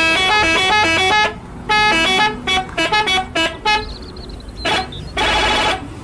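School bus horn sounding a quick tune of short notes that step up and down in pitch, then one longer blast near the end.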